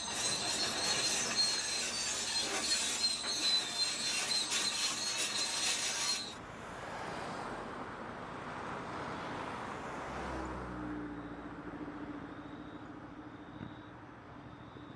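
A forest fire roaring and crackling: a loud hissing rush full of crackles with a steady high whine, which drops to a softer rush after about six seconds. A low steady hum joins it near ten seconds in.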